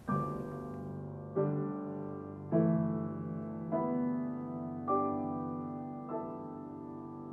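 Closing piano music: a slow run of six chords, one struck about every second and a quarter, each ringing on and fading before the next.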